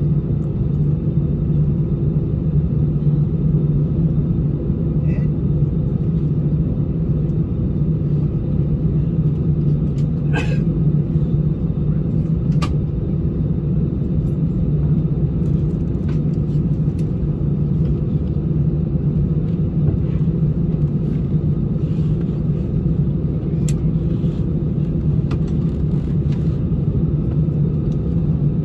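Cabin noise of an Airbus A319's CFM56 jet engines idling, heard from a seat over the wing: a steady low hum and rumble. A couple of faint clicks sound near the middle.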